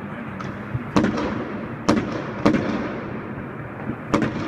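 Chinese New Year fireworks going off: four loud, sharp bangs at uneven intervals over a continuous crackle of many other fireworks.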